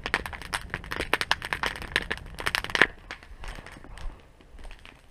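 Wood campfire crackling with many sharp pops, thinning to a few quieter pops about three seconds in.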